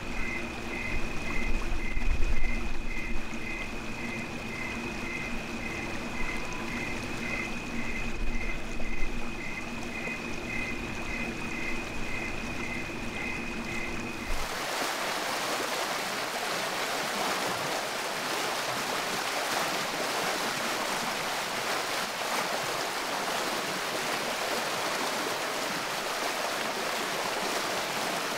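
Water trickling and running over the rocks of a shallow creek, with a steady high-pitched tone, a chirp about twice a second and a low hum behind it. About halfway through it changes abruptly to the louder, even rush of water welling up and churning in a rocky pool.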